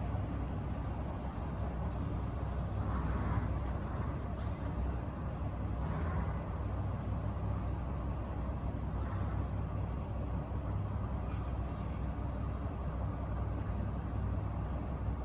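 Diesel locomotive DH5 of the narrow-gauge Puffing Billy Railway idling: a steady low engine rumble.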